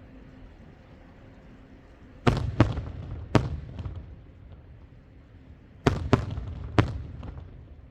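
Aerial firework shells bursting overhead: three sharp bangs a little over two seconds in, then three more about six seconds in. Each group is followed by a fading rumble and echo.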